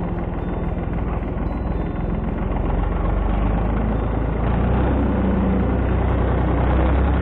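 Farm tractor's diesel engine running steadily at low revs while towing a sled through snow, heard close up, getting a little louder about halfway through.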